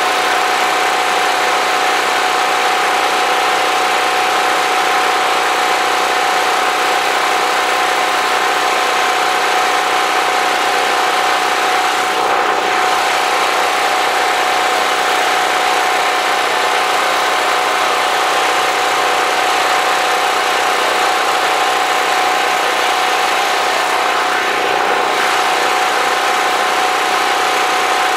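Portable generator engine running steadily, a loud constant drone with a steady hum.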